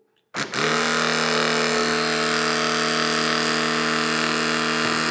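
Greenlee ESG45LX cordless hydraulic hard metal cutter's motor and pump running, driving the ram up to push the moving bottom blade out for removal. It starts about half a second in and runs steadily.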